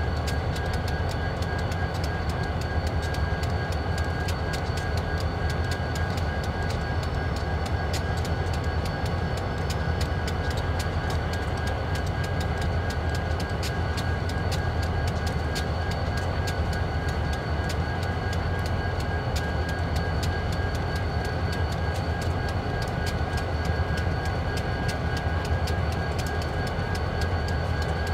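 Diesel locomotives running steadily: a deep, even rumble with a thin steady whine over it and frequent light clicks.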